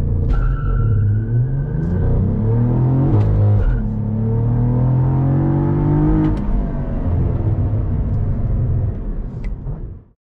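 2022 Cadillac CT4-V Blackwing's twin-turbo V6 at full throttle, heard from inside the cabin, revs climbing through the gears. The revs drop briefly at two shifts, about three and six seconds in, each with a short crackle, as the throttle is held flat through each no-lift shift. The sound cuts off suddenly near the end.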